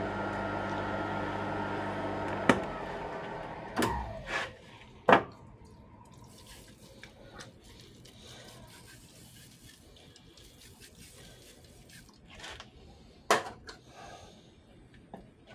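TOS milling machine running steadily, then stopped about two and a half seconds in, with a few sharp knocks as it is shut down. A faint aerosol spray hisses onto the freshly skimmed cast-iron cylinder head afterwards, and there is another knock near the end.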